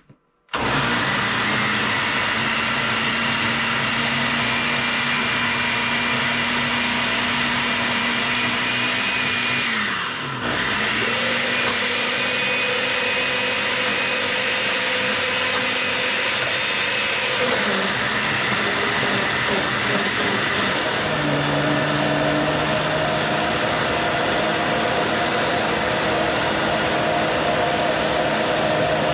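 Countertop blender switching on about half a second in and running hard, pureeing cooked soybeans with their cooking water into a paste. About ten seconds in the motor briefly winds down and comes back up, and its pitch shifts twice more later on.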